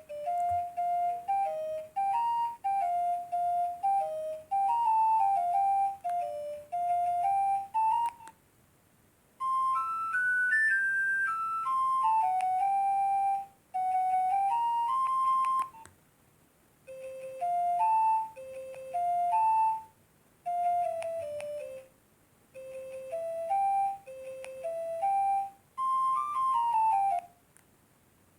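Nokia 1208b mobile phone playing ringtone melodies: a single line of short, quick notes, stopping briefly a few times between phrases.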